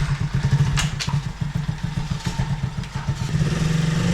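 Small motorcycle-type engine running unevenly just after being started, with a sharp click about a second in.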